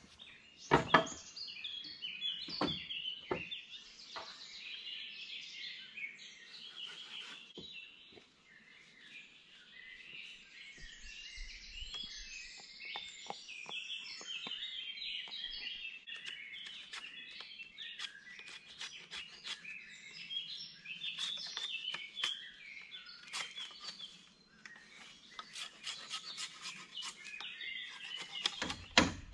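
Songbirds chirping and singing continuously, with scattered sharp knocks and taps of tool work on wood that grow more frequent near the end and turn into fast, regular chopping strikes just before the end.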